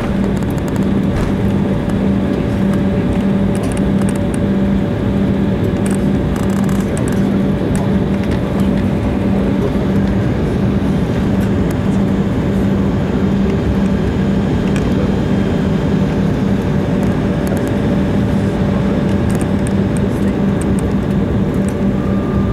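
Steady cabin noise inside an Embraer E190 rolling along the runway after landing: engine and airflow noise with a low, steady hum underneath.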